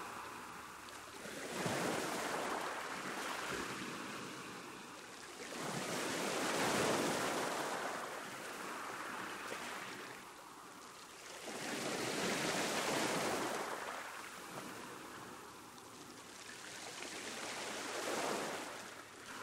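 Sea waves breaking and washing on a beach, four surges swelling and fading about every five to six seconds.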